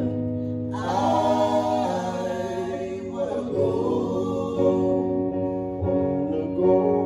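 A gospel worship song sung by three voices in harmony over guitar accompaniment, the voices held and wavering on long notes.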